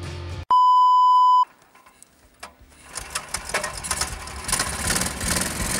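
A steady electronic beep lasting about a second, then, after a short quiet gap, a homemade snowmobile's single-cylinder four-stroke Sharmax 18 hp walk-behind-tractor engine running under way, growing louder toward the end.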